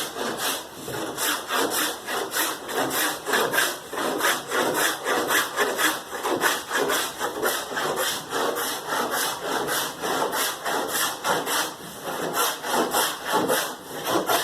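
A hand tool working wood in quick, even back-and-forth strokes, several a second, as a carpenter cuts or shapes a board for a ceiling.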